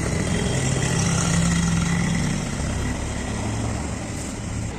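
A vehicle engine running steadily at low revs, with a hum that shifts slightly in pitch.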